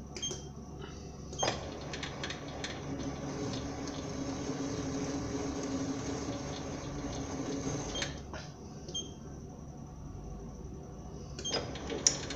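SIEG SC4 mini lathe cutting a thread in steel at low speed. It switches on with a click about 1.5 s in and runs with a steady hum and cutting hiss until about 8 s. After another click it runs more quietly, and a few sharp clacks come near the end as the threading attachment's spring-balanced tool lifts off the work.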